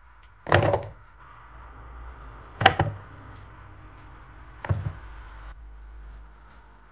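Chopped vegetable pieces tipped from a steel measuring cup, landing in a plastic food-chopper bowl with a clattering thud, three times about two seconds apart.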